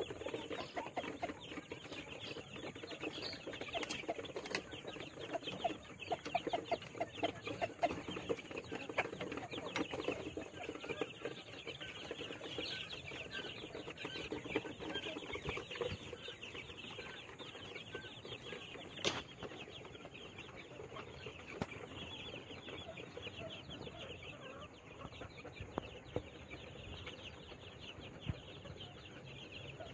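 Young chicken chicks and quail in a mesh cage calling constantly: many overlapping short high peeps, with lower calls mixed in, busier during the first half. One sharp click about nineteen seconds in.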